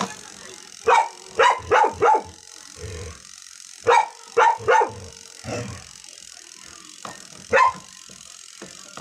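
A dog barking repeatedly, in quick groups of two or three barks.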